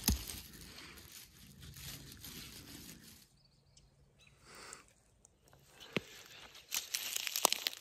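Quiet open-air background. About six seconds in there is a single sharp click, and near the end a short spell of crackling and clicking as dry grass and stems are brushed through.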